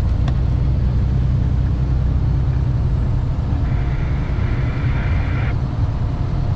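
Steady low rumble of a semi-truck's diesel engine and road noise heard inside the cab at highway speed. A light click comes just after the start, and a short patch of hiss lasting about two seconds comes past the middle.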